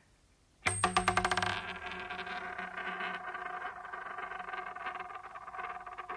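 A coin spun on a hard surface, used as the recorded opening of a song: it starts suddenly with a quick rattle of clicks, then rings with a steady metallic tone as it wobbles on.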